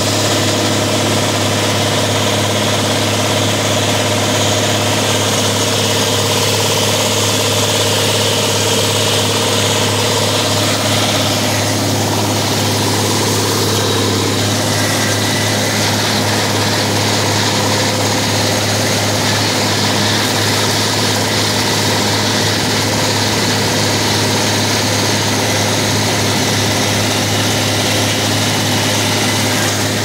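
Tractor engine running steadily while mowing hay with a disc mower, a constant low hum with no break.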